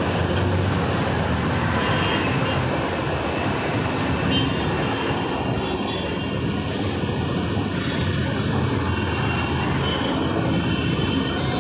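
Steady din of dense road traffic on a multi-lane highway: cars, auto-rickshaws and motorbikes running together into one continuous noise.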